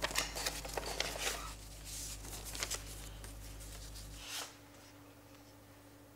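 Paper rustling as it is handled and unfolded: a string of soft, crisp, irregular crackles over a low steady hum, dying away about four seconds in.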